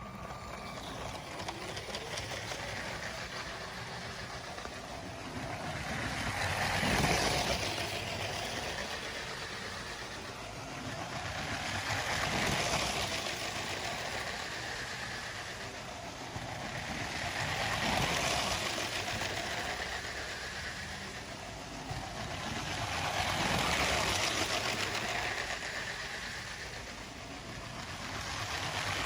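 A motorised LEGO train running on plastic track, its motor and wheels growing louder and fading again as it passes close by, about every five and a half seconds as it loops the layout.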